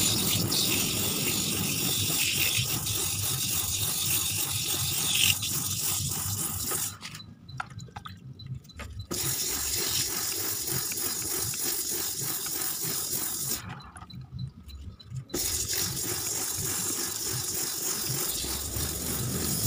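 Wet 200-grit sandpaper scraping against the inside of an automatic scooter's spinning clutch bell: a steady rasping hiss that stops twice for about two seconds, around seven and fourteen seconds in. The sanding is smoothing out the scoring on the bell that makes the scooter judder when pulling away.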